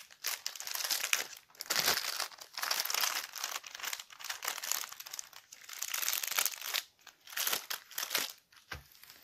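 Clear plastic protective film on a diamond painting canvas crinkling in short, irregular bursts as hands lift and smooth it over the sticky drill area.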